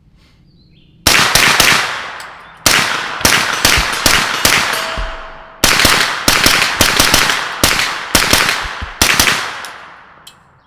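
B&T GHM9 9mm carbine firing 115-grain ammunition through a CGS Kraken suppressor: about twenty shots in three quick strings, each shot followed by a long rolling echo. The gun cycles every round without a stoppage.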